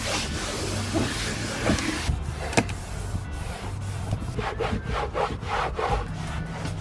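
A disposable cleaning wipe rubbed by hand over a car's interior dashboard trim and leather seat, a steady scrubbing with a quicker run of short strokes in the second half.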